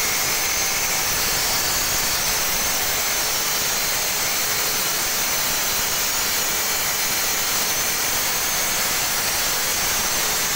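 Granite-cutting machine's saw blade running steadily through a granite block with water cooling, making a continuous hiss with a faint high whine while it makes a 45° bevel cut.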